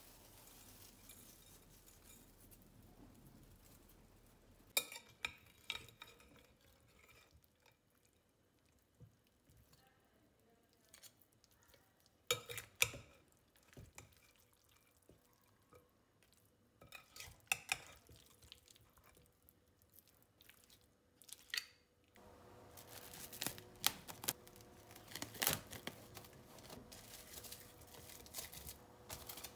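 A metal spoon stirs a thick mix of chicken, potato chunks and yogurt in a glass bowl, with sharp clinks against the glass every few seconds. From about two-thirds of the way in, a dense crinkling follows: plastic cling film being pulled and stretched over the bowl.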